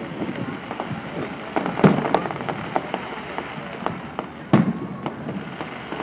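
Fireworks display: two loud shell bursts about two and a half seconds apart, with smaller pops and crackles in between.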